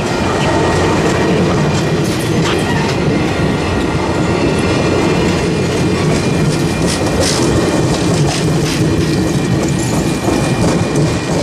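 Cuyahoga Valley Scenic Railroad stainless-steel passenger cars rolling past at close range: a steady rumble of wheels on rail, with scattered clicks over the rail joints and a thin, steady high squeal underneath.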